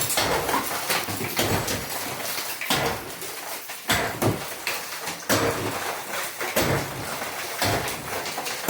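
Pickaxe striking concrete in a steady rhythm, one blow a little over a second apart, with broken concrete rattling and crumbling between the blows.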